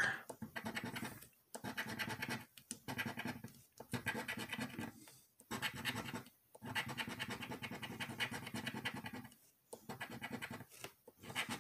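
A coin scratching the coating off a lottery scratch-off ticket in quick rapid strokes. The scratching comes in spells of a second or two with brief pauses between them.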